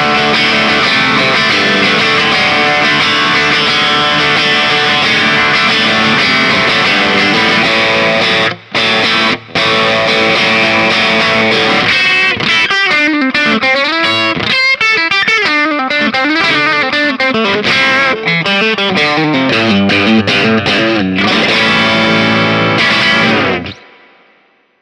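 FGN J-Standard Iliad JIL2ASHM electric guitar played with a crunchy overdriven tone. It starts with ringing sustained chords, broken by two short stops about nine seconds in. Then comes a run of single-note lead lines with bends and vibrato, and a final held chord that is cut off and dies away near the end.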